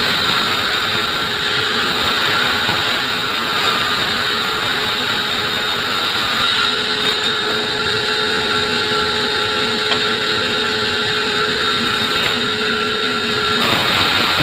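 Sawmill saw cutting through acacia wood, running steadily under load with a constant whine.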